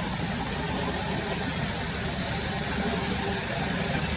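Car engine idling steadily, a low rumble, with a steady high-pitched hiss above it.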